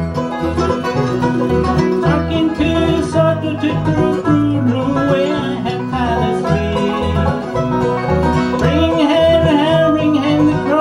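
Bluegrass band playing an instrumental break between verses: banjo and guitar over a steady, regularly pulsing bass line.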